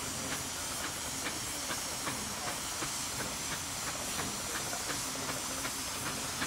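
Steam traction engines working under heavy load: a steady hiss of steam, with exhaust beats coming evenly about two to three times a second.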